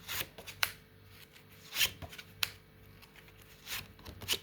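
Tarot cards being shuffled and handled, with about six sharp snaps and slaps at uneven intervals.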